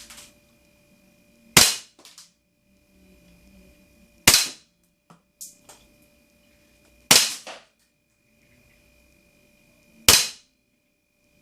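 Aimtop CO2-powered SVD (Dragunov-style) airsoft rifle firing 0.3 g BBs: four sharp single shots, about three seconds apart, with fainter clicks between them.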